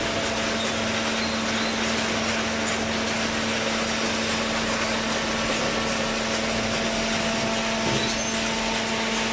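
Hydraulic power unit of a vertical cardboard baler running steadily: electric motor and pump giving an even hum with a constant low tone over a steady hiss.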